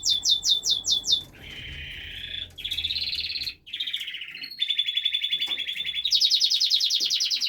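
Canary singing: a song of fast repeated trilled phrases, each run of identical notes switching to a new phrase every second or two, with a brief pause about three and a half seconds in and a faster trill near the end.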